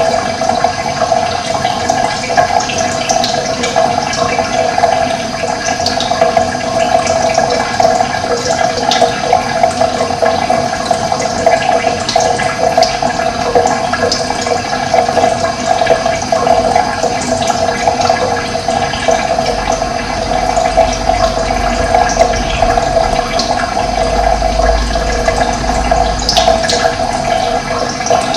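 Steady rush of running water, with short high bird chirps scattered over it.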